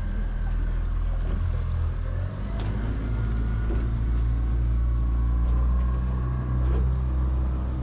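A boat's outboard motor running steadily at slow trolling speed, a low hum whose pitch shifts slightly about two seconds in.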